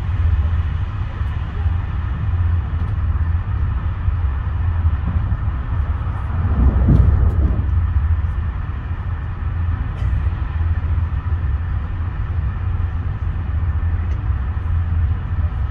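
Cabin noise of a moving passenger train: a steady low rumble of wheels running on the rails, swelling briefly about seven seconds in.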